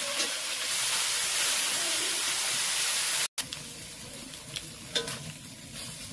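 Small fish sizzling as they fry in hot oil in a wok, stirred with a metal spatula. After a short break about three seconds in, the sizzle is quieter, with a few light clicks.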